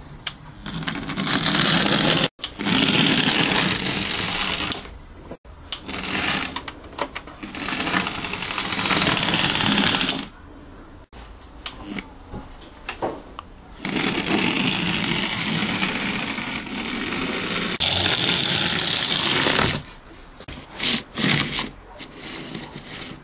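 Model J50 tank locomotive running on its track: the small electric motor whirs and buzzes, with wheel clicks over the rails. It grows louder and quieter in stretches and breaks off abruptly three times.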